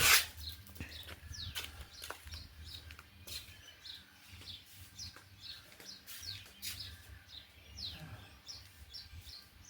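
Small birds chirping: a run of short, high chirps, each sweeping quickly downward, repeating about once or twice a second, over a faint low steady hum.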